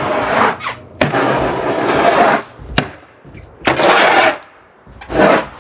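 Snow shovel scraping and pushing snow in long strokes, with a couple of sharp knocks, then shorter scrapes.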